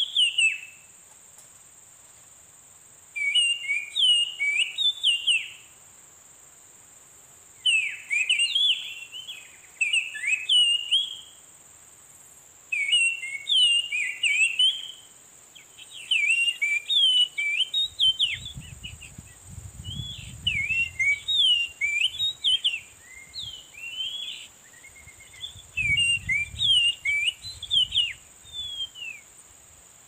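Oriental magpie-robin song: bursts of whistled, sweeping phrases every few seconds, coming almost without pause in the second half. A steady high insect drone runs underneath, with a low rumble twice near the end.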